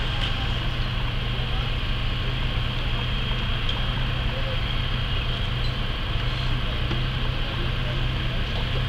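Fire engine's engine running steadily at the fire scene, a constant low hum, under an even hiss of hose water and steam on the burning bus.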